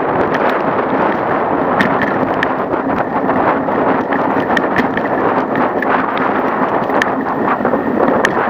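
Bicycle riding over a cracked concrete-slab path: a steady rumble and rattle from the bike and its mounted camera, with scattered sharp clicks and knocks and wind on the microphone.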